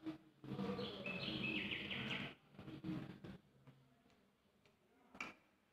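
A bird chirping for about two seconds near the start, with a steady low hum beneath it. A single sharp click comes about five seconds in.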